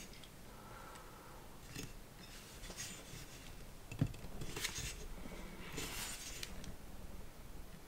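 Handling noise from a folding metal laptop stand being worked by hand: light rubbing, scrapes and clicks of its legs and pivot, with one sharp knock about four seconds in.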